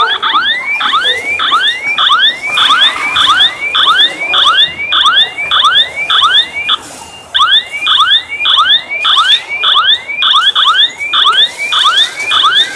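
Electronic chirping tone: short rising sweeps repeating about two to three times a second, each with a brief higher beep, in a steady warbling loop with a short break around the middle.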